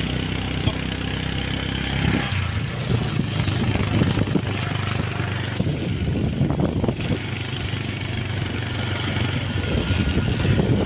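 Motorcycle engine running on the move, with wind and wet-road noise over it; the engine note shifts about two seconds in and gets rougher after.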